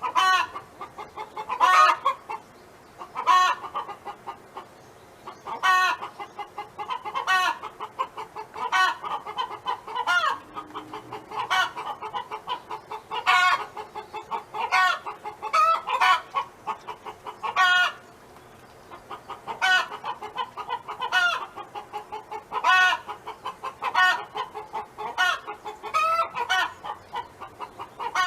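Domestic hen clucking in repeated phrases: runs of quick clucks, each capped by a louder, drawn-out call, recurring every second or two.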